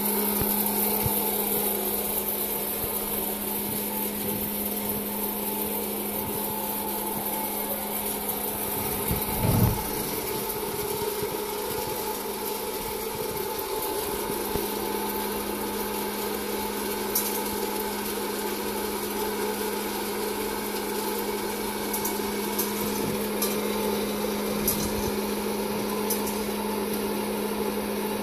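Hot-air popcorn popper's fan motor running steadily with a constant hum. A low thump about a third of the way in, and a few sharp ticks in the second half.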